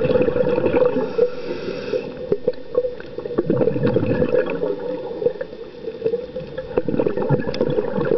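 Underwater sound of a scuba diver breathing through a regulator: a hiss of breath about a second in, and bubbling, gurgling exhaled air, over steady crackling clicks.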